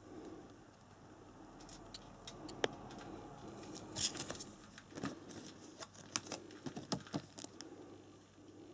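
Plastic parts bags crinkling as they are handled, with scattered light clicks and taps, most of them in the second half.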